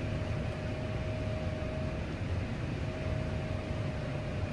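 Steady low electric hum of a running milling machine motor, with a faint high whine that drops out for about a second midway.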